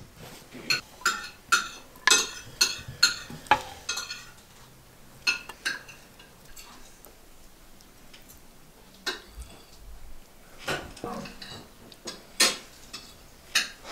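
Metal kitchen utensils clinking and knocking against pots and dishes. A quick run of clinks comes in the first few seconds, then a lull, then more clinks in the last few seconds.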